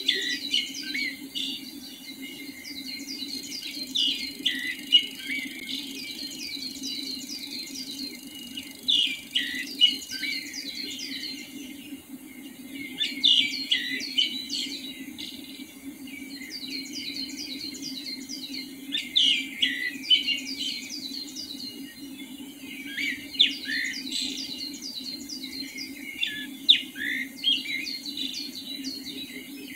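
Dawn chorus of small songbirds: many quick, high chirps and twitters in overlapping clusters every few seconds, over a steady low hum.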